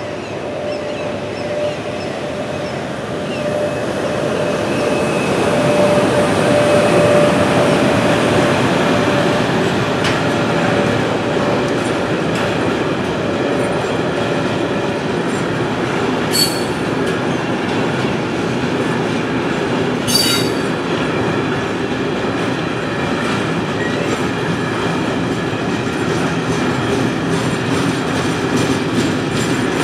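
Freight train of covered wagons rolling over a level crossing: a steady rumble and clatter of wheels on rail that builds over the first several seconds as the train arrives, with a held squealing tone in the first half. Two sharp metallic bangs come about halfway through and again some four seconds later.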